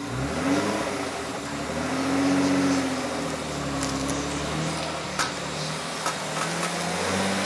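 The twin-turbo V6 of a Nissan 300ZX Twin Turbo (Z32) revving up and down as the car moves off under power for a burnout. A few sharp clicks come in about four and five seconds in.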